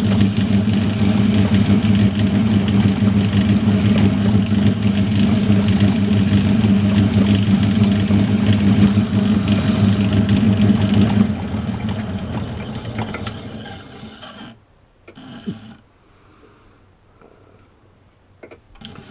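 Metal lathe running with a steady motor hum while an abrasive sheet is held against the spinning workpiece to take off burrs. About eleven seconds in the lathe is switched off and runs down over a few seconds, followed by a few small knocks as the chuck is handled.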